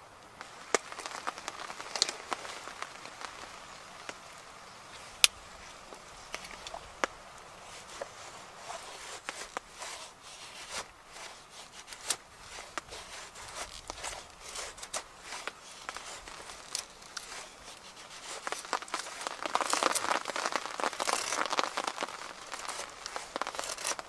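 Fixed-blade knife shaving thin curls down a dry stick to make a feather stick: repeated short scraping strokes of steel on wood, coming thicker and louder about three-quarters of the way through. A few sharp clicks stand out in the first several seconds.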